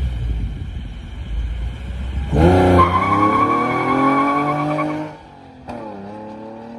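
Infiniti G37S's V6 engine, fitted with Stillen cold air intakes, running at a low rumble, then revved hard about two seconds in and held high for a couple of seconds before dropping back. A click follows, then the engine runs on more quietly with its pitch slowly rising.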